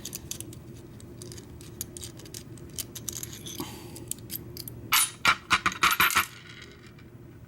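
Small metal parts of a Schlage deadbolt cylinder clicking as it is taken apart by hand. About five seconds in comes a quick run of sharp metallic clinks lasting about a second.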